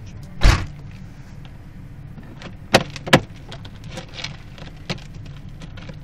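Steady low hum of a car running, heard from inside the cab. A loud thump comes about half a second in, and sharp knocks follow around three seconds (two close together) and again near five seconds.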